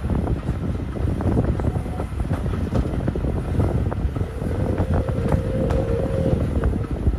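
Steady low rumble of a moving train with frequent short clicks, and wind on the microphone; a thin steady tone sounds for about two seconds past the middle.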